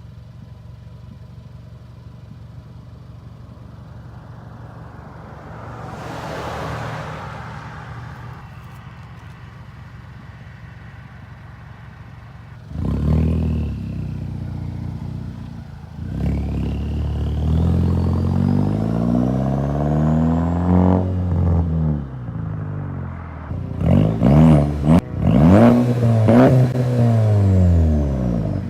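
Tuned MK6 Jetta GLI's turbocharged 2.0-litre four-cylinder through a 3-inch exhaust with a bullet muffler, idling steadily, then revved hard about halfway through. The revs climb and fall several times, with a run of quick rev blips near the end.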